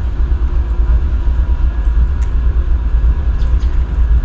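GE ES40DC diesel-electric locomotive's V12 diesel engine idling: a loud, deep, steady rumble with a faint steady hum above it.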